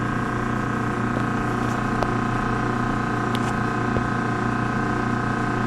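Steady machinery drone with several steady hum tones and a few faint clicks, from equipment running in the mechanical space.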